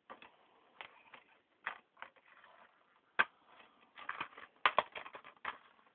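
Plastic DVD cases and discs being handled: scattered clicks and taps, with one sharp click about three seconds in and a quick run of clicks near the end.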